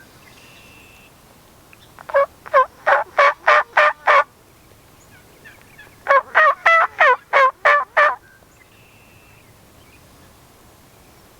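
Two loud runs of turkey yelps, each about seven or eight evenly spaced notes at roughly three to four a second, the first about two seconds in and the second about six seconds in.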